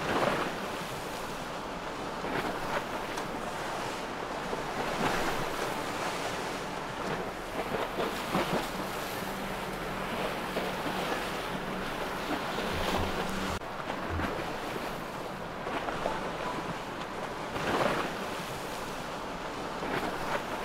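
Water rushing and splashing in boat wakes along a passing boat's hull, with wind buffeting the microphone. A faint, steady boat-engine hum joins in for a few seconds in the middle.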